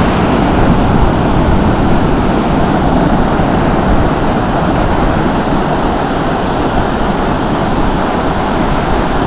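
Strong wind buffeting the microphone over the steady wash of surf, a loud, even rush heaviest in the low end.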